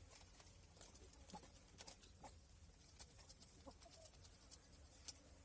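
Near silence with faint scattered clicks and ticks.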